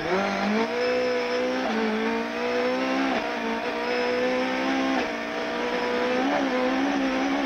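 Rally car engine held at full throttle, heard from inside the cabin, with its pitch stepping down at gear changes about one and a half seconds apart as the car accelerates along a long straight.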